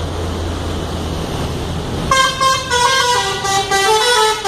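Telolet multi-tone air horn on a Pandawa 87 bus playing a melody. About two seconds in, it starts a quick run of loud notes stepping up and down, over a steady low engine hum.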